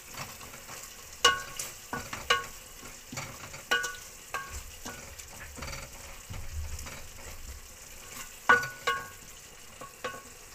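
A wooden spoon stirs a thick onion-tomato masala frying in an aluminium pot. The spoon knocks against the pot's side about nine times at uneven intervals, each knock ringing briefly, over a low sizzle.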